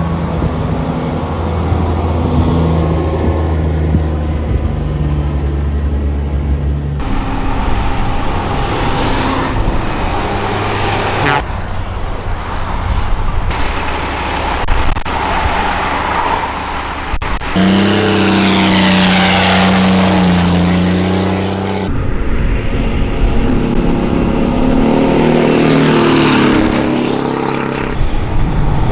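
Diesel engine of a cab-over semi truck (a Caterpillar C12) running under load as it hauls a trailer, heard in several short clips cut together. About two-thirds of the way through the truck passes close by and its engine pitch falls as it goes.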